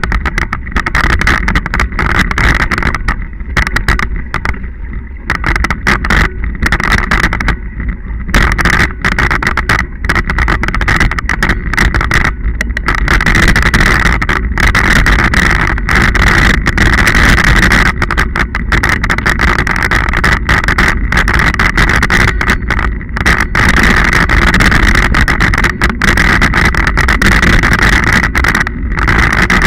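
Scott Genius 40 full-suspension mountain bike riding fast over a bumpy, muddy dirt trail, heard from a camera mounted on the bike: a loud, steady rush of wind and tyre noise with constant rattling knocks from the rough ground, most jolting in the first dozen seconds.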